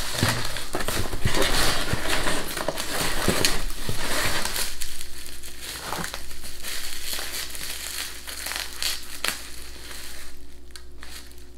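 Packaging rustling and crackling as an item is pulled from a cardboard box and unwrapped. It is dense for the first four or five seconds, then thins to scattered rustles and small clicks.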